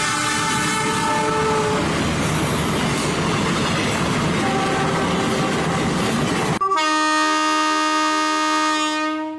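A train running, with loud rail and engine noise and a horn faintly sounding. About two-thirds of the way in it switches suddenly to a clean, sustained train horn holding a chord of several notes, which fades out at the end.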